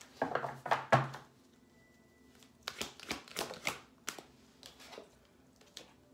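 A deck of oracle cards being shuffled by hand: short clusters of crisp card clicks and rustles, with pauses between.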